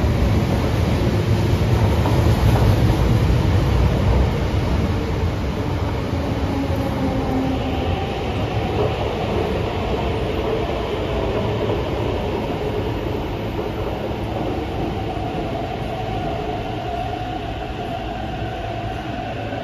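MTR electric metro train pulling into the platform and slowing down: a loud rumble of wheels on rail that slowly eases off. From about eight seconds in, a steady whine stands out as it decelerates.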